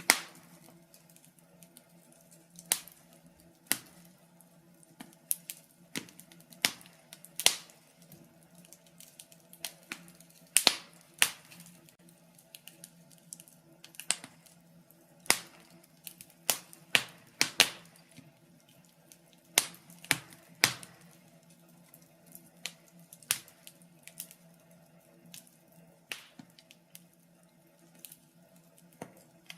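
Wood fire in a fireplace crackling: irregular sharp pops and snaps, about one every second or so, some much louder than others, over a faint steady hum.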